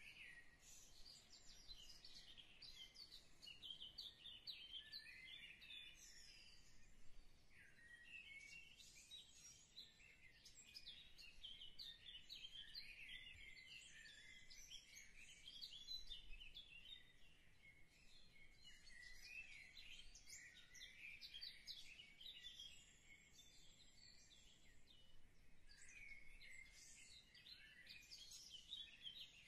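Faint birdsong: many short, high chirps from several small birds overlapping, with brief lulls.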